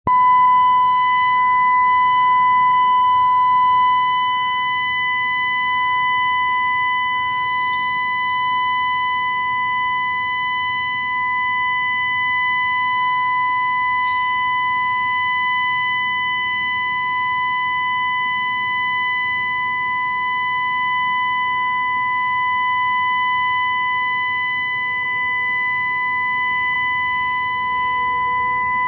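All-clear alarm siren sounding one steady, unbroken tone that holds its pitch without rising or falling, the signal that an emergency is over and normal operations can resume.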